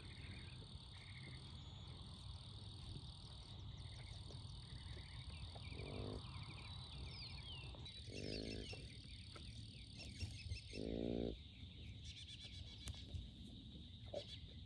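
Cattle calling: three short, low moos about six, eight and ten seconds in, the last the longest. A steady high insect drone and a few bird chirps run underneath.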